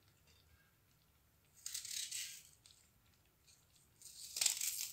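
A knife cutting a raw onion by hand over the pot: two crisp crunching bursts about two seconds apart.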